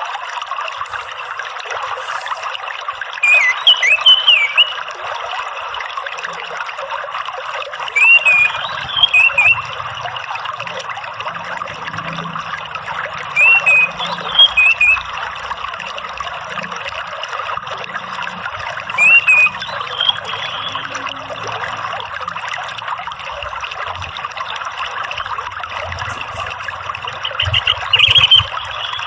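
Water trickling steadily, with an orange-headed thrush singing short whistled phrases about every five seconds over it.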